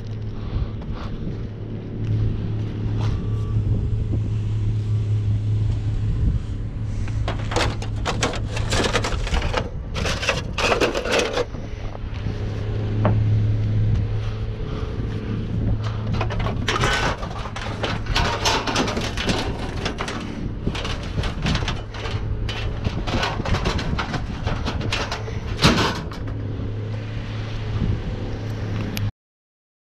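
Pickup truck engine idling steadily, with irregular scuffs and knocks over it. The sound cuts off suddenly near the end.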